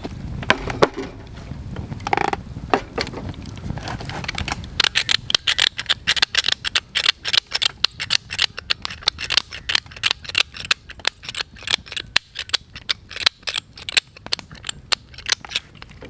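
Hand pepper mill grinding black pepper onto a raw steak: a rapid run of crisp grinding clicks from about five seconds in, in short bursts.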